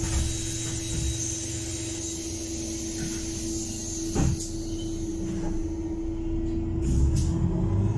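Interior sound of a Heuliez GX 337 natural-gas city bus under way: a steady engine and drivetrain rumble with a constant hum. A single sharp knock comes about four seconds in, and near the end two short sharp sounds are followed by the engine getting louder.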